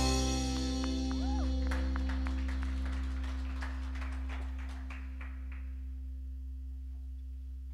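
A worship band's held chord slowly fading out, a sustained keyboard pad under it, with a run of light plucked guitar notes through the middle.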